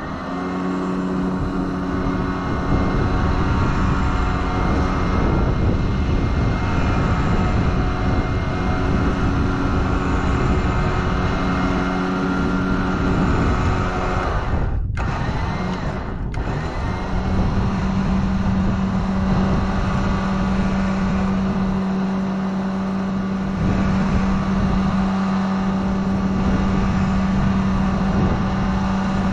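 Engine running steadily at constant speed with an even hum. The sound cuts out briefly twice about halfway through.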